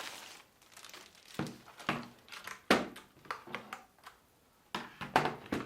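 Handling noise from a keyboard being unpacked: a few sharp knocks and clicks with some crinkling of packaging between them.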